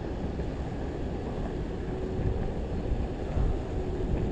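Wind buffeting the microphone over the steady low rumble of a Possway T3 electric skateboard rolling along the road, with a faint steady hum.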